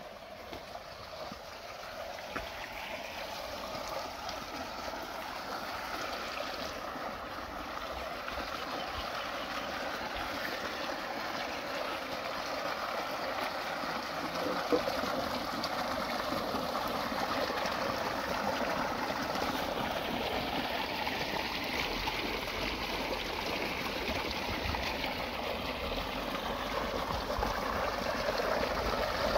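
Water gushing steadily from a tubewell's outlet pipe into a concrete tank, growing gradually louder, with a single brief knock about fifteen seconds in.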